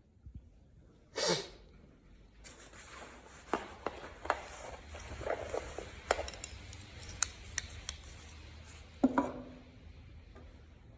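Metal parts of a roller stand being handled and fitted during assembly. A short scrape comes about a second in, then several seconds of rustling with scattered small clicks and knocks, and a metal clank that rings briefly near the end.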